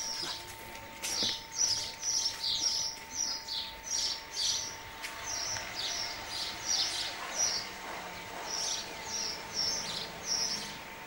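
Small birds chirping: short, high, repeated chirps about twice a second, steady throughout.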